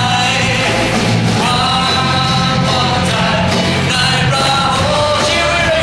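A live band with drums and electric guitar playing a worship song while a lead singer sings into a microphone, holding long notes.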